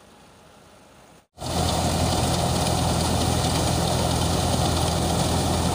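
Faint steady hum, then after about a second and a half a sudden cut to a threshing machine running loud and steady: a low drone from the drive with a dense rushing hiss of threshing over it.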